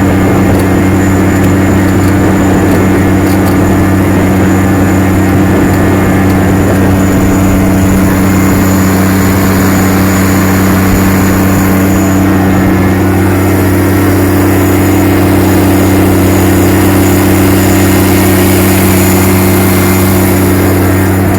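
Case IH STX 535 Quadtrac tractor's engine running steadily under load while pulling a plough, a constant deep drone with no change in speed.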